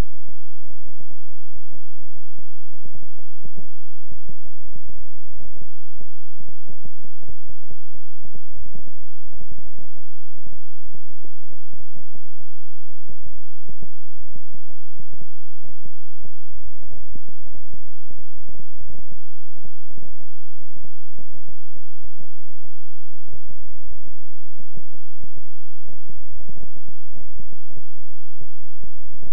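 Synthesized low-pitched hum throbbing in rapid, continuous pulses: a 'healing frequency' tone track.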